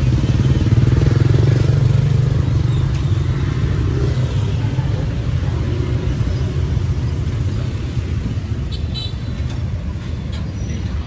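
Street traffic noise: a motor vehicle engine, likely a motorbike, running close by. It is loudest for the first few seconds and then eases off.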